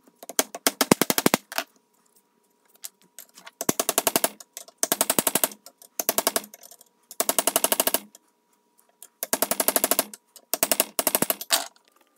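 Pneumatic air hammer firing in about six short bursts of rapid metal-on-metal strikes, driving the old wooden handle out of a ball peen hammer head held in a vise. The handle is stuck fast and resists coming out.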